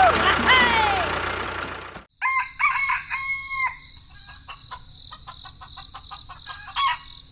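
A rooster crowing, with a steady high chirring of crickets coming in about two seconds in.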